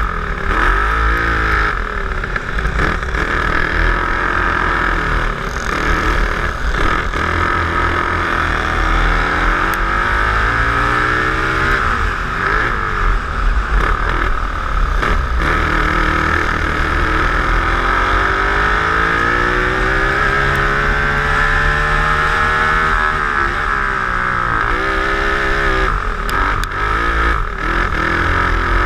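Twin-engine dirt kart's engines running hard, their pitch rising as the kart accelerates and falling away into each corner, over and over, heard from on board the kart.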